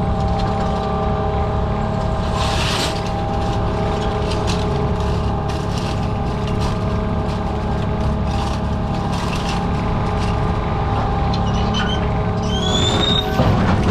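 Fishing boat's engine and deck machinery running steadily, with a constant whine and scattered sharp metallic knocks. A brief high squeal near the end.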